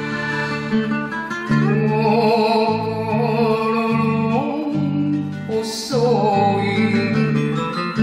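Man singing an enka ballad with a wavering vibrato over a karaoke backing track; the voice comes in about a second and a half in, after the end of an instrumental passage.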